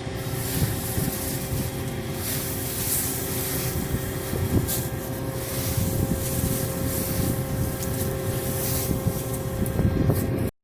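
Combine harvester running: a steady drone of engine and machinery with a continuous hiss over it.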